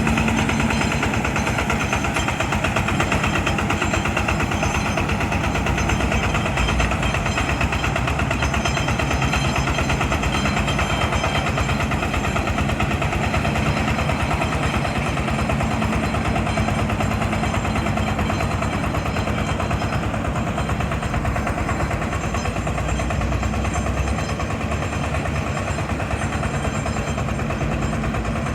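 4LZ-0.7 mini combine harvester running: a steady, rapidly pulsing engine with the machine's working noise over it.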